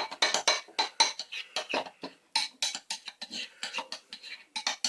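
A spoon scraping and clinking against a bowl while stirring cocoa powder into thick fruit yogurt, in quick, irregular strokes.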